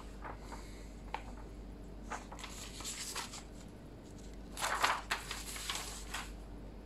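Sheets of paper rustling as they are handled and moved about, in a string of short rustles with the loudest about five seconds in.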